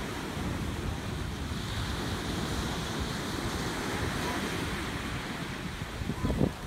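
Surf washing onto the beach and rocks, a steady rush, with wind buffeting the microphone.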